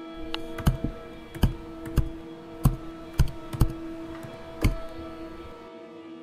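Laptop keys pressed one at a time: about eight sharp clicks at uneven intervals, stopping about a second and a half before the end, over a steady sustained music chord.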